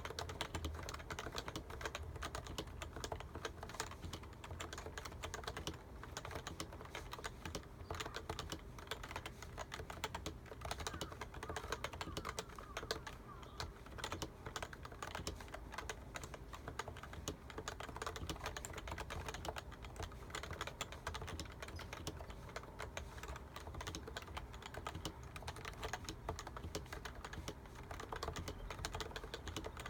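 Topre Realforce keyboard with electrostatic capacitive switches being typed on continuously: a rapid, unbroken stream of keystrokes.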